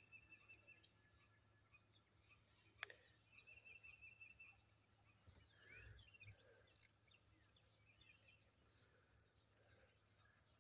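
Near silence: faint outdoor ambience of insect or bird chirping, broken by a few short sharp clicks, the loudest about seven seconds in.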